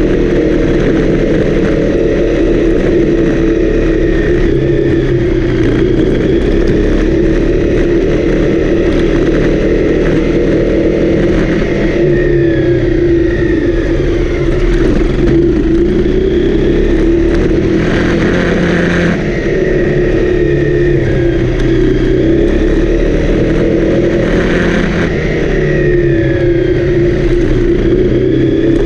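Honda CRF250L's single-cylinder four-stroke engine running steadily under way, its pitch drifting up and down with the throttle as the bike is ridden. Twice there is a brief rush of hissing noise over the engine.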